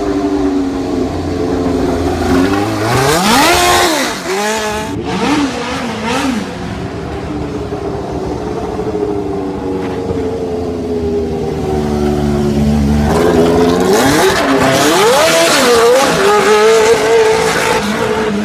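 Race car engine running, revved sharply with quick throttle blips about three seconds in and again near the end, holding a steadier lower note between.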